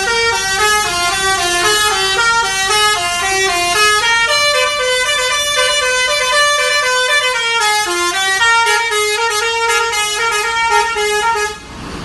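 Telolet multi-tone musical horn on a Jetbus 3+ coach playing a quick tune of stepped notes, a low line and a high line moving together. The tune cuts off suddenly near the end.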